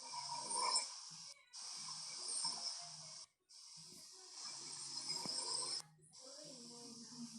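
A sleeping man snoring faintly, breath after breath with a hissy rasp. The sound cuts out to silence briefly three times.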